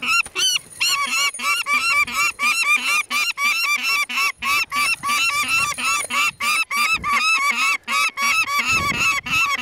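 Peregrine falcons giving short calls over and over, several a second without a break, loudly and close by: the clamour of a nest being disturbed while the young are handled for banding.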